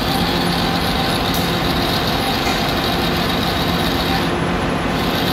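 Metal lathe running steadily with a brass fitting spinning in its chuck: an even mechanical hum with a hiss above it.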